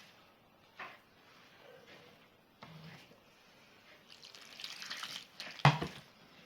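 Warm water poured into a bowl of flour and yeast for batbout dough, a hiss lasting about a second and a half, followed by one loud knock as something hard is set down or struck.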